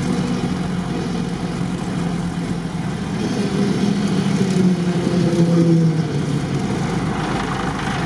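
Modified UAZ off-road vehicle's engine running steadily as it drives along, a continuous low drone whose pitch shifts a little around the middle.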